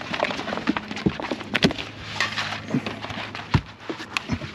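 Irregular knocks, clicks and short scrapes from a flathead and fishing gear being handled in a small boat, with a faint steady low hum.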